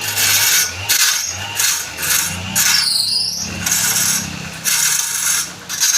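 Wood lathe with a turning tool cutting into spinning wood: a scraping hiss in repeated passes that swells and fades, over a low motor hum.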